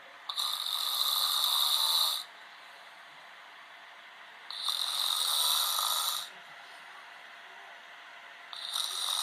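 A man snoring: three long snores, each about two seconds long, coming roughly every four seconds, the last one starting near the end.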